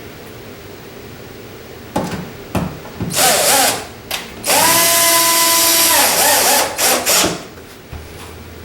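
Power drill driving a mounting screw into a door: a few short trigger pulses, then a steady run of nearly two seconds with a motor whine, then a couple more short pulses. The screw is binding, which the installer guesses is from cross-threading.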